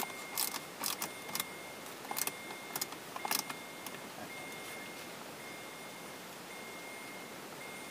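Screwdriver driving screws into a plastic dashboard trim panel: a quick run of small clicks and scrapes over the first three seconds or so, then they stop.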